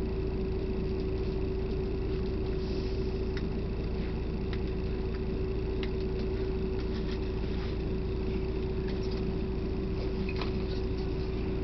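Steady bus cabin noise: a low running rumble with a constant mid-pitched hum and scattered light clicks and rattles.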